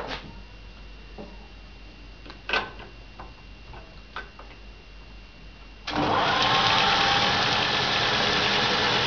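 A few light clicks and knocks of handling at the wood lathe. About six seconds in, the lathe is switched on and starts running, loud and steady.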